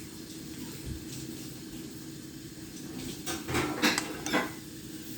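Kitchen things being handled: a quick run of four or so knocks and clinks a little over three seconds in, over a steady low hum.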